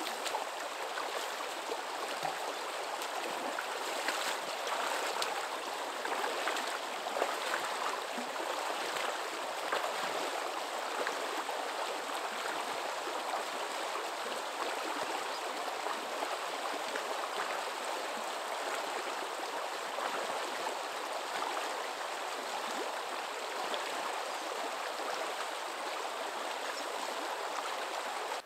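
Flowing stream: a steady rush of running water that starts and stops abruptly.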